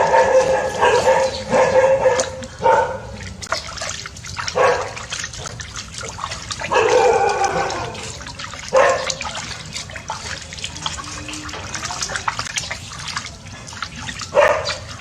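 An animal calling in several bouts of short pitched cries, over a steady splashing of water.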